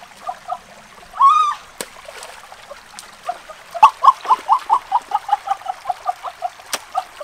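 Shallow rocky stream trickling and splashing as someone wades and gropes among the stones, with a few sharp clicks. Over it an unidentified animal calls: one rising call about a second in, then from about halfway a fast run of short notes, about five a second.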